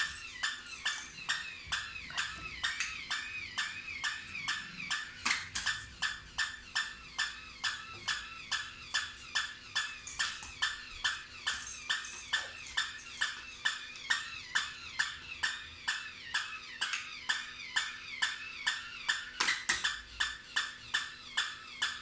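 Barking toy dog clicking mechanically in an even rhythm, about two to three clicks a second, with a faint wavering high tone during the first few seconds.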